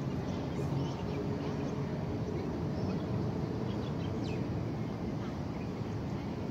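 Outdoor ambience: a steady low rumble with a few faint bird chirps scattered through it.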